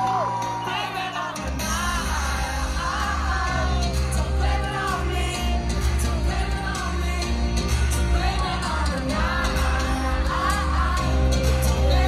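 Live concert music from a large stage sound system heard from within the crowd: a singer's voice over heavy bass that kicks in about a second and a half in.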